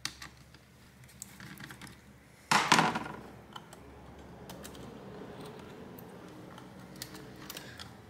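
Small clicks and handling noises from hand tools working on a netbook's plastic case and circuit board, with one louder clatter about two and a half seconds in.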